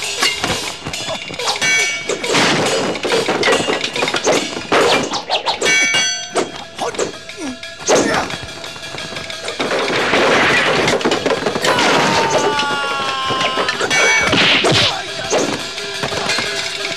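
Martial-arts film fight sound effects: a rapid flurry of whacks and hits, ringing metal clangs of spear and sword blades, and smashing wood, with film music underneath.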